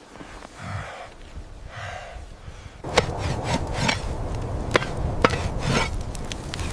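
A few soft scraping sounds, then a run of sharp chopping knocks, about eight in the last four seconds, irregularly spaced.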